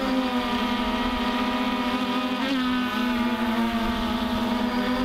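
Thunder Tiger Ghost+ quadcopter in flight: its four brushless motors and 11-inch propellers make a steady buzzing hum, which dips in pitch briefly about halfway through.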